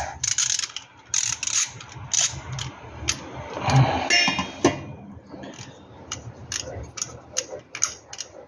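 Ratchet wrench on a spark plug socket clicking in quick runs as spark plugs are turned in and out of the engine's cylinder head. The clicks come thicker and more evenly in the second half.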